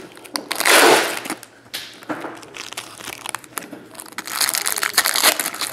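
Foil wrapper of a baseball card pack crinkling and tearing as it is opened by hand, in irregular crackly bursts. The loudest burst comes about a second in, with denser crinkling again near the end.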